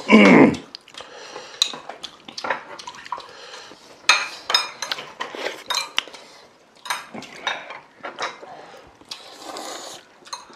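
Eating utensils clinking and scraping against bowls and dishes during a meal, in scattered short clinks.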